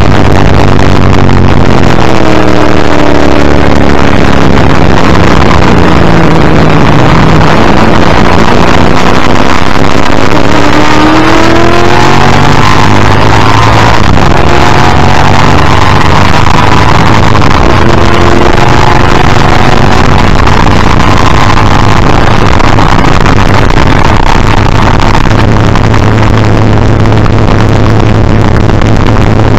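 1984 XD Group C Ford Falcon's V8 racing engine, heard from a front-bumper camera: very loud throughout, its note falling through downshifts about two to seven seconds in, then rising as it accelerates and holding a steadier pitch near the end.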